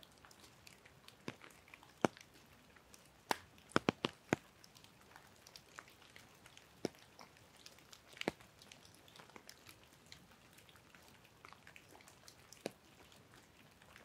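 Scattered raindrops tapping close by at irregular intervals, with a quick cluster of taps about four seconds in, over a faint steady hiss of rain.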